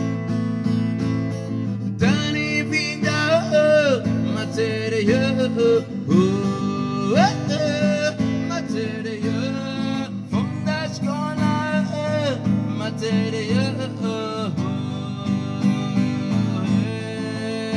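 Acoustic guitar strummed steadily as live accompaniment. From about two seconds in, a man sings a melody over it, with sliding, bending notes.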